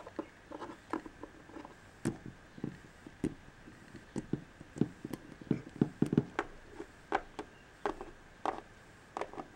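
Plastic toy figurines being handled and set down on a table: a string of light, irregular taps and clicks.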